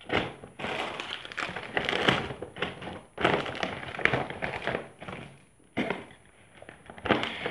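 Paper gift bag rustling and crinkling as it is handled and lifted, with a few light knocks.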